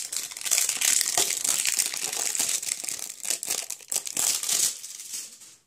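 Packaging crinkling and rustling as a blind box and the sealed bag inside it are opened by hand, a dense run of crackles that dies away near the end.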